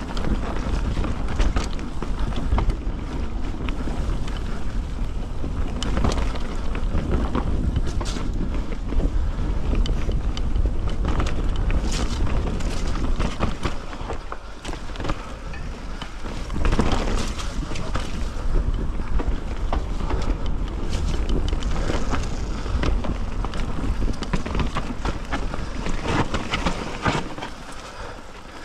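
Merida One-Sixty mountain bike descending a dirt trail: continuous tyre rumble and wind on the microphone, broken by frequent rattles and knocks of the bike over roots and bumps. It quietens near the end.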